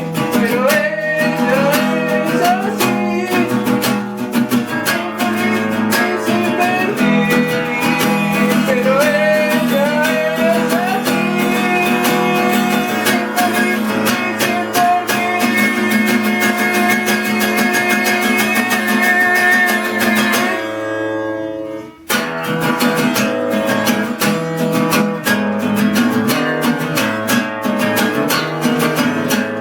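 Guitar music, strummed and plucked, with a short break about three-quarters of the way through.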